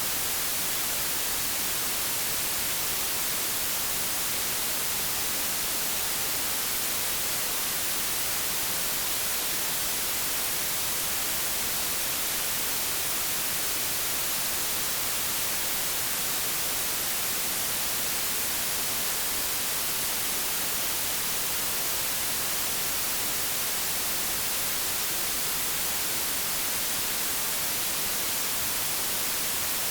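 Generated white noise: a steady, even hiss that never changes.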